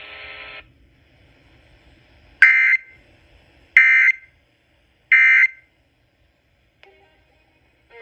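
Emergency Alert System end-of-message data bursts on NOAA Weather Radio: three identical short, shrill digital squawks about 1.3 s apart, signalling the end of the flash flood warning broadcast.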